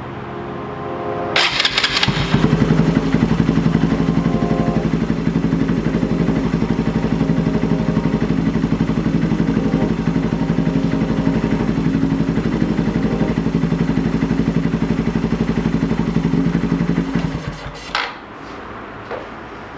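2018 Honda Grom's 125 cc single-cylinder engine started, catching after a brief crank about a second and a half in, then idling steadily before it is shut off near the end, with a click just after. The engine has just had its oil changed and a high-flow oil pump fitted.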